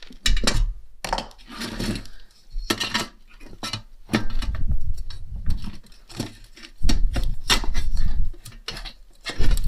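Irregular clinks, knocks and handling clatter of tools and metal parts being moved about on a workbench, with a few heavier thumps.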